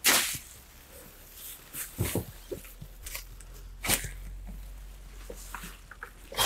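A long-handled garden tool stabbed into a hot compost heap and the material tossed over, with a sharp scraping stroke about every two seconds.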